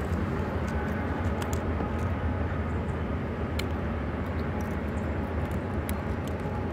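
Steady low rumble, with a few light clicks now and then.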